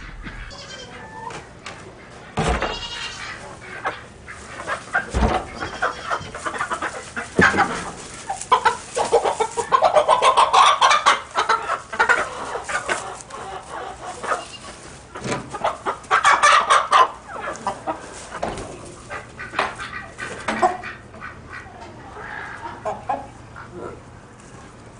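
Chickens squawking and clucking in alarm as they are caught and picked up by hand, over rustling in straw bedding and a few thumps. The squawking is loudest in two stretches through the middle.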